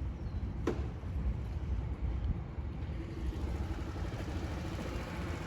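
Small 49cc scooter engine idling steadily, with one sharp click about three-quarters of a second in.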